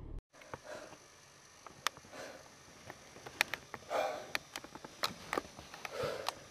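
Soft breathing or sniffing close to the microphone, a breath every second or two, with scattered small clicks and taps.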